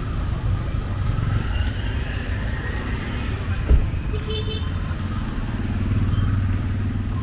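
Street traffic: motor vehicle engines running past, a low rumble that swells near the end, with a single sharp thump a little past halfway.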